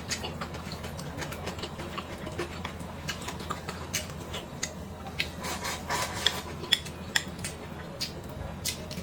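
Eating utensils tapping and scraping against bowls and plates during a meal: irregular sharp clicks, a few louder ones about six to seven seconds in.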